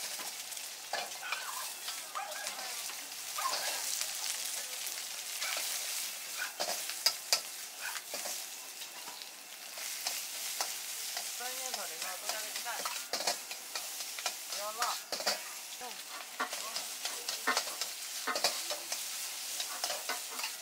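Egg fried rice frying in a wok: a steady sizzle, with the metal ladle repeatedly scraping and clanking against the wok as the rice is stirred and tossed.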